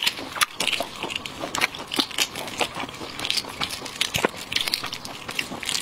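Eggshell of a sauce-soaked, five-spice duck egg embryo (balut) crackling and breaking as gloved fingers peel it, with many small wet clicks and squelches.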